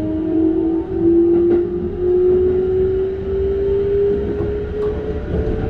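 Keikyu 600 series train's Mitsubishi GTO-VVVF inverter and traction motors whining with one steady tone that rises slowly in pitch as the train accelerates under power. Beneath it is the rumble of wheels on rail heard inside the car, with a couple of light knocks.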